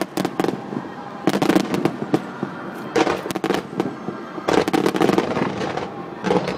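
Fireworks display: rapid volleys of sharp cracks and pops from low-level comets and fountain effects fired in quick succession, coming in dense clusters about every one to one and a half seconds.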